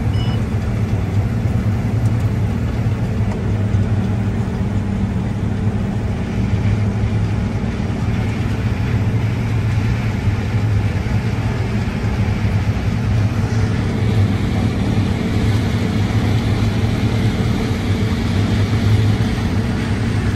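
Steady drone of a New Holland combine's engine and machinery, heard from inside the cab.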